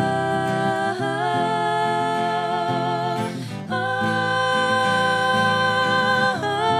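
Live folk-pop music: acoustic guitar strumming under a melody of three long held notes, two of them ending in a wavering vibrato.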